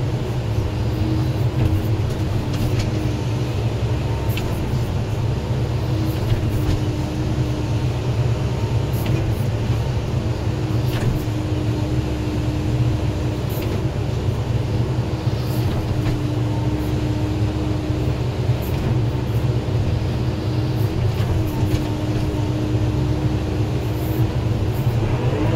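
Excavator's diesel engine running steadily under working load, heard from inside the cab as a constant low drone, with a thin higher tone that comes and goes as the arm and bucket move.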